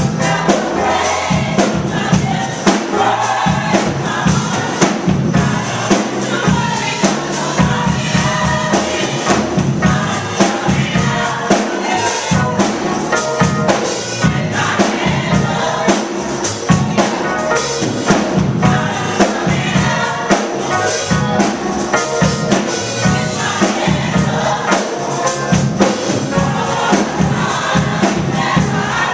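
Gospel church choir singing, clapping along to a steady beat.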